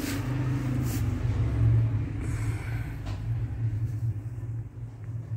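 A low, steady rumble, with a few soft clicks near the start and about three seconds in.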